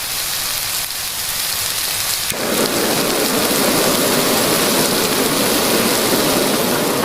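Stir fry sizzling in a hot steel pan, a steady hiss; about two seconds in it suddenly grows louder and fuller.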